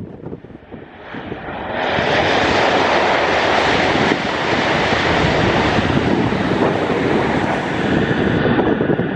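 Hokuriku Shinkansen train passing at speed: a steady rushing noise that builds quickly about two seconds in and holds, its hiss dropping off a little near the end, with wind buffeting the microphone.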